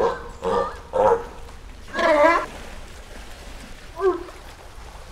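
Sea lion barking: three short barks in quick succession, then a longer wavering call about two seconds in and a short bark near the end.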